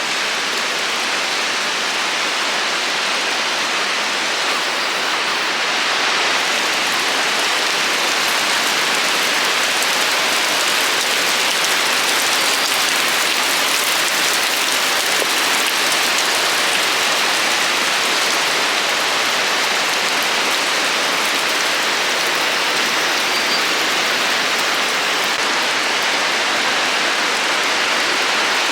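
Steady rushing hiss of falling water, getting a little louder about six seconds in.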